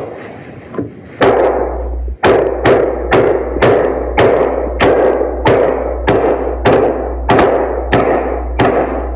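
Claw hammer striking a nail into a wooden board in steady, evenly spaced blows, about two a second, starting about a second in.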